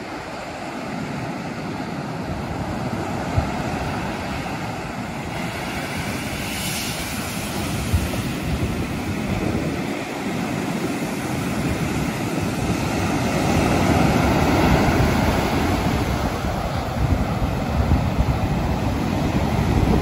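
Sea surf breaking and washing up a sandy beach, a continuous rushing wash that grows louder in the second half, with the low rumble of wind buffeting the phone's microphone.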